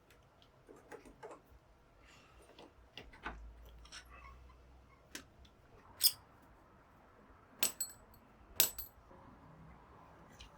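Small metal parts and tools clinking and tapping, a scatter of separate knocks with two brighter metallic clinks that ring briefly about two-thirds of the way through.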